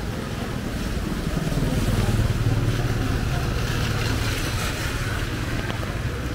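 A motor vehicle's engine hums past close by, growing louder to a peak about two seconds in and then easing off, over a steady hiss of rain on the street.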